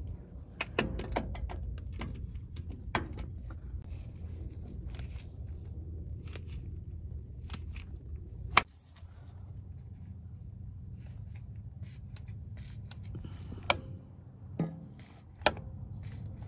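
Scattered clicks and metal knocks of hand tools and a lever-action grease gun at a truck's front suspension, over a steady low rumble. A single sharp knock about eight and a half seconds in is the loudest, with a few more near the end.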